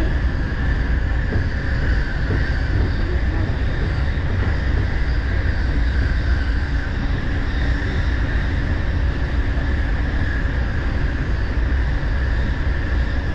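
JR Musashino Line electric train running at speed, heard from inside the passenger car: a steady low rumble with a steady higher ring over it, as the train crosses a steel truss bridge.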